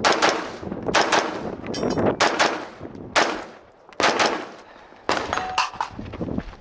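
Rifle shots fired at an uneven pace, about one a second, with a short ringing tone about five seconds in.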